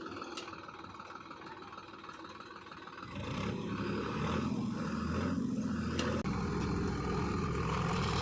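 Heavy diesel engine running, then revving up and working under load from about three seconds in, louder and deeper from there on.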